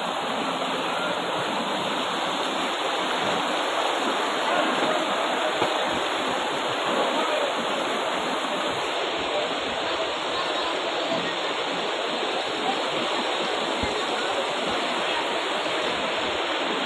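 Fast, muddy floodwater rushing down a street in a steady torrent.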